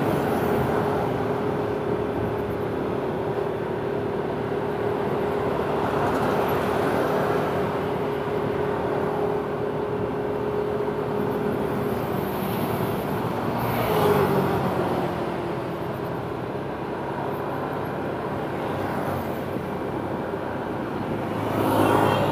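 Motorcycle riding along a street, its engine running at a steady pitch under wind and road noise. The engine note drops about fourteen seconds in. Traffic swells louder twice, around the middle and again near the end as a vehicle passes close by.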